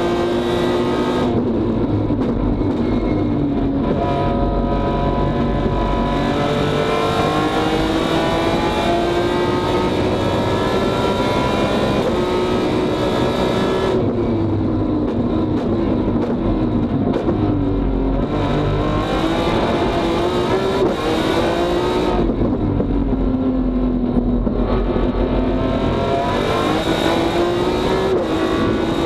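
BMW S54 straight-six in an E36 touring race car, heard from inside the cockpit, running hard at racing speed. Its pitch climbs through the gears under acceleration, then falls away several times as the throttle is lifted for braking and downshifts.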